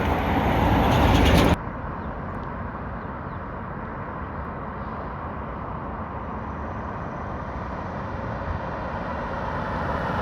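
Steady tyre road noise from a car driving on Continental CC7 tyres: an even low rumble and hiss. About a second and a half in, a louder rushing noise cuts off abruptly, leaving the quieter road noise.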